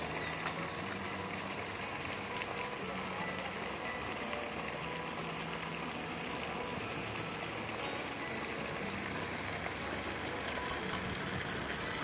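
Steady outdoor background hum like distant traffic, with faint, short high bird chirps now and then.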